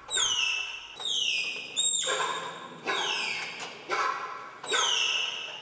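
Malayan tapir calf squealing in panic: a series of shrill, piercing calls, about one a second, each sliding down in pitch.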